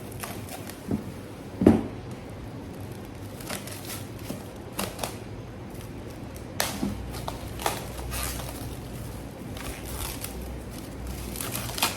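Plastic cling film being pulled out and pressed over a bowl of dough, giving scattered crinkles and sharp ticks, with a single knock about two seconds in.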